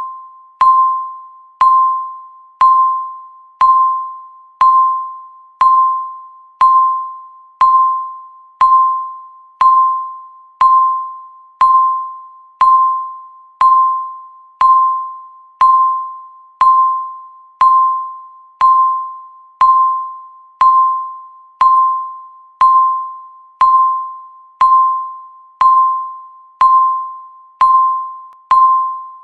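Countdown timer's electronic beep sounding once a second, each beep a single medium-high tone that starts sharply and fades away before the next.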